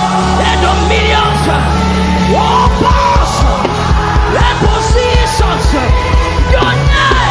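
Live gospel worship band playing: held keyboard chords and long bass notes, then a steady drum beat about two and a half seconds in, with voices crying out and singing in sliding tones over the music.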